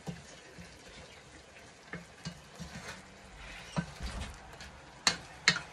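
A slotted spatula stirring mung bean stew in a metal pot, with light scrapes and clicks against the pot over a faint sizzle. Two short, sharp sounds come near the end.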